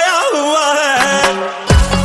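Hindi-Punjabi pop ballad: an ornamented, wavering melody line over a held chord with the bass and drums dropped out, then the full beat with a deep bass drum comes back in near the end.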